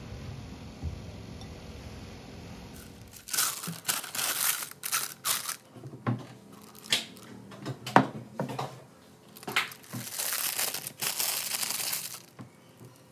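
A plastic piping bag crinkling and rustling in irregular bursts as it is handled and its top is folded over the rim of a tall glass, starting about three seconds in, with one sharp tap near eight seconds.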